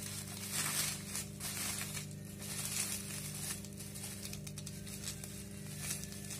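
Plastic bubble wrap crinkling and crackling in irregular bursts as it is unwrapped and pulled off a spinning fishing reel.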